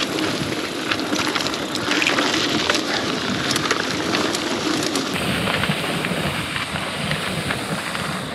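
Mountain bike rolling over a rough dirt-and-rock trail: tyres crunching and the frame and chain rattling over bumps as a steady noisy rush.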